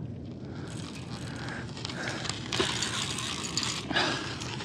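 Conventional casting fishing reel, a Shimano Torium 30HG, being cranked under load while fighting a sturgeon, its gears ratcheting and clicking, with louder patches in the middle.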